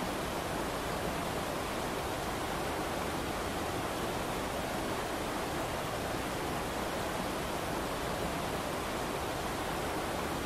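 Steady rushing of a river running over rapids, an even wash of water noise with no change.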